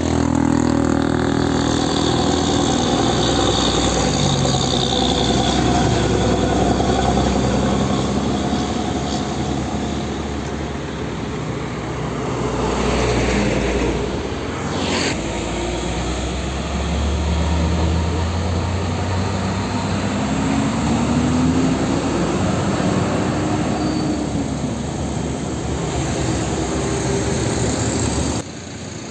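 Passing road traffic: heavy diesel trucks running by, with motorcycles and cars going past. In the second half one engine note climbs and then falls again.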